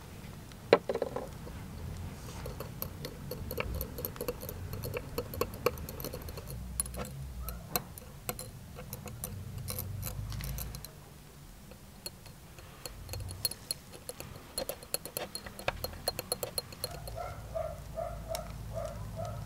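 Metal stirring rod clinking against a small drinking glass while liquid silicone is stirred: a long run of quick, light ticks.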